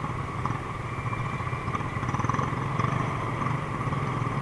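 Small motor scooter engine running at low speed in slow, crowded traffic, with other motorcycles close by; a steady, pulsing engine note.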